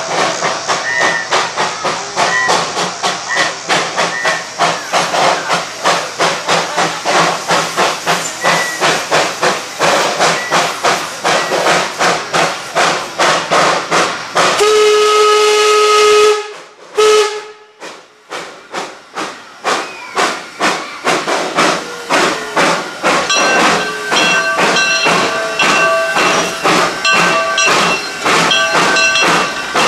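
A narrow-gauge 2-6-0 steam locomotive working, with a quick, even beat of exhaust chuffs. About fifteen seconds in, its whistle gives one long blast and then a short toot, and the chuffing goes on. Near the end a repeated ringing tone sounds over the chuffs.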